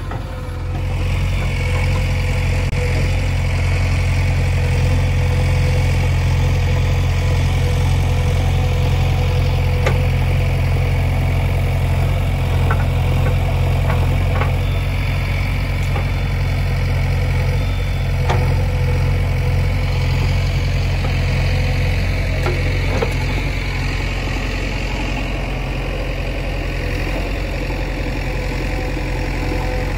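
JCB 3DX backhoe loader's diesel engine running steadily at working revs while the backhoe digs, picking up about a second in. A few light knocks sound over it.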